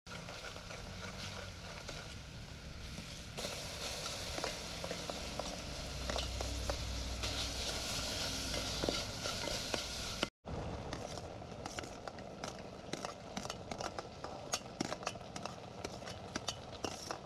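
Oil sizzling in an aluminium pot while a metal spoon stirs and scrapes against it. After a sudden cut about ten seconds in, the sizzle gives way to quick, sharp clinks and taps of the spoon on the pot.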